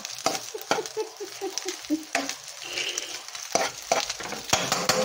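Metal spatula scraping and knocking against a nonstick wok as fried rice is stirred and tossed, with a light sizzle of frying underneath. The knocks come irregularly, several a second.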